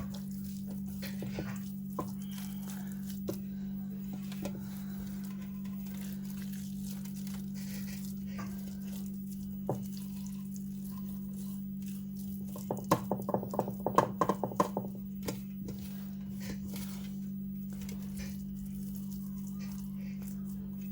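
A steady low hum throughout, with scattered light clicks and a run of quick taps and knocks about thirteen to fifteen seconds in, as whole fish are handled and rubbed with chermoula marinade.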